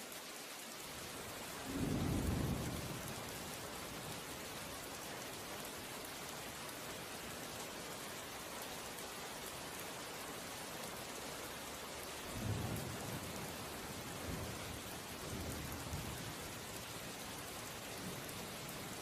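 Steady hiss of rain, with low rolls of thunder about two seconds in and again from about twelve seconds in.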